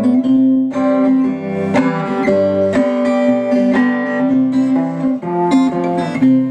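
Orpheus Valley Perfect Scale x-braced parlor guitar strung with Martin Silk & Steel strings, played as an instrumental passage: a steady run of plucked notes over a ringing low note.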